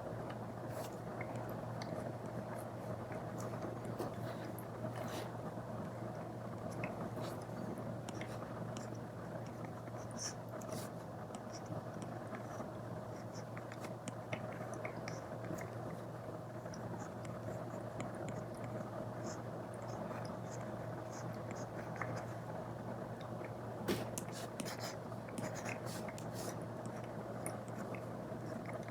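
Apple Pencil tip tapping and scratching on an iPad screen fitted with a paper-feel film: scattered small ticks and strokes, busiest about 24 seconds in, over a steady low hum.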